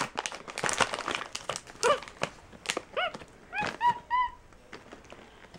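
Black-capped capuchin monkey giving about five short, high, squeaky chirps between two and four and a half seconds in, while a crinkly plastic snack bag rustles as it digs through it.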